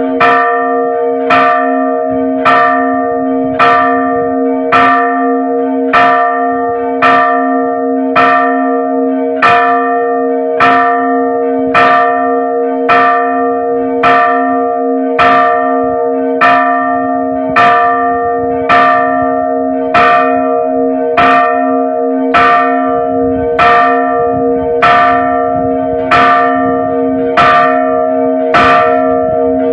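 Hung bronze church bell struck by its rope-pulled clapper at a steady pace of about one stroke a second, each stroke ringing on into the next so that the bell's hum never dies away. It is a repique, the festive chiming rung for the Marian month of May.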